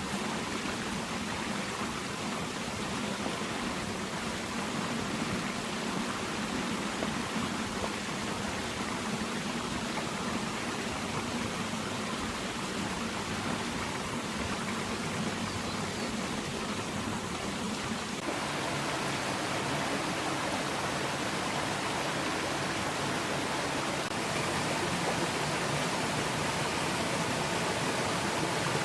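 Waterfall on a moorland stream: water pouring and rushing in a steady roar, stepping up louder about two-thirds of the way through and again near the end.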